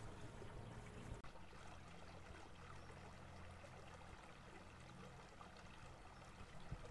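Faint wash of water along the hull of a small aluminium electric boat under way, with a low steady hum underneath. The sound shifts slightly about a second in.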